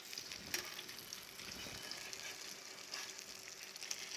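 Soaked slices of spiced bread frying in butter in a frying pan, a steady sizzle, with a couple of sharp clicks of a metal palette knife against the pan as the slices are turned.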